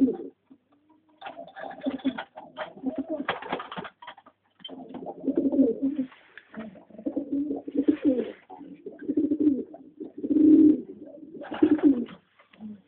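Homing pigeons cooing over and over, one low call after another, with a few brief rustling noises in between.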